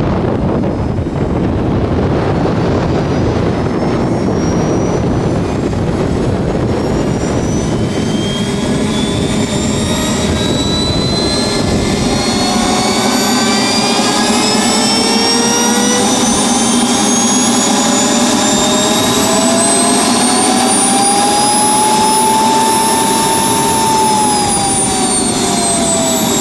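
JetCat P120 model jet turbine starting up: a loud rushing noise with a whine that climbs steadily in pitch as the turbine spools up, peaks a little over 20 seconds in, then drops back in pitch near the end.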